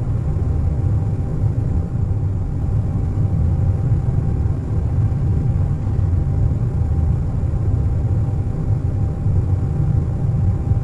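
Airliner cabin noise at cruise: a steady deep rumble with a faint steady whine above it.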